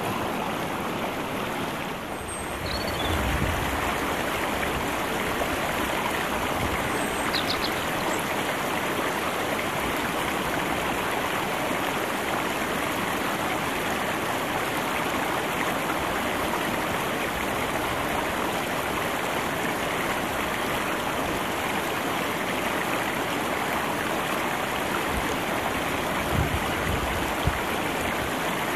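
Steady rushing of river water flowing over stones.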